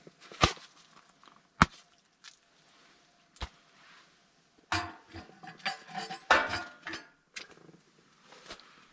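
Three sharp knocks a second or two apart, then about two seconds of quick clattering and knocking.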